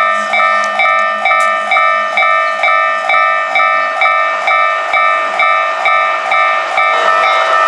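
Japanese railway level-crossing warning bell ringing its repeated electronic ding, about three strokes every two seconds. A rushing noise, typical of a passing train, builds under it near the end.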